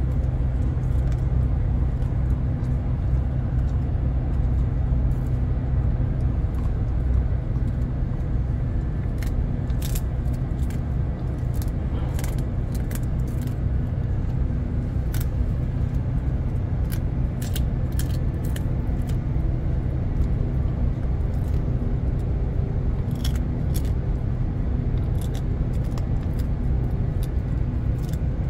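Dog chewing a hard dried treat, with sharp crunches scattered through, more of them from about a third of the way in, over a steady low hum of a ship's machinery.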